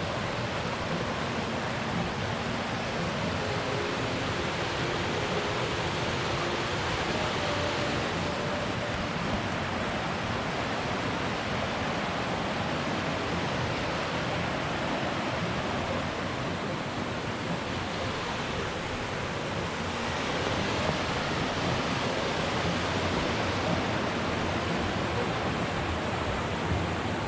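Steady rushing of a fast mountain creek, an even, unbroken water noise.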